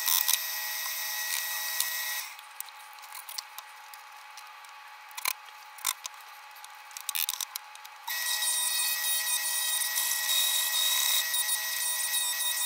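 Drill press running a 50-grit sanding drum against Osage orange, a steady high-pitched whine sped up six times. About two seconds in it goes quieter, with a few sharp clicks and knocks, and it starts again about eight seconds in.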